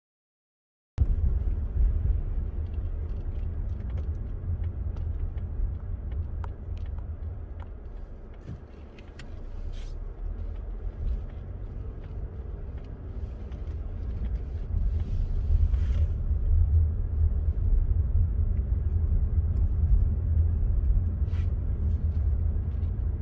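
Car driving, a steady low rumble of road and engine noise with a few faint clicks. It starts abruptly about a second in and grows a little louder toward the end.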